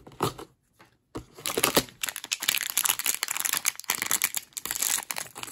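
A small packaging bag crinkling and rustling in the hands as it is opened to get at the toy inside: a few crackles, a short pause, then continuous crinkling from about a second in.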